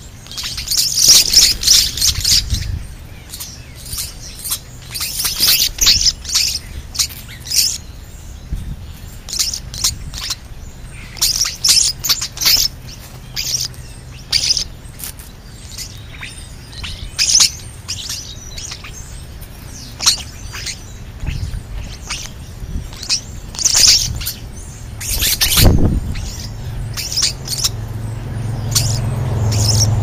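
European starlings chattering close by: many short, high chirps and squawks in quick clusters. There is a sharp knock about three-quarters of the way through, and a low rumble builds near the end.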